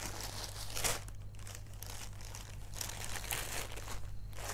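Embroidered net saree fabric rustling and crinkling as it is lifted and unfolded by hand, in uneven bursts, with the loudest one about a second in.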